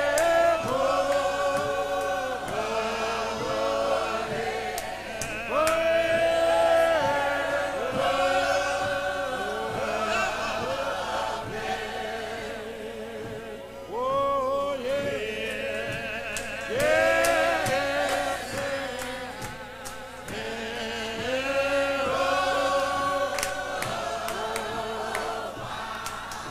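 Church hymn choir of men's and women's voices singing a hymn unaccompanied, in slow, long-held phrases with vibrato, each phrase swelling in anew every few seconds.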